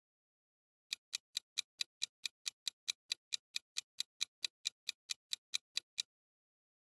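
Clock-ticking sound effect for a quiz countdown timer: quick, even ticks, about four to five a second. It starts about a second in and stops about six seconds in as the timer reaches zero.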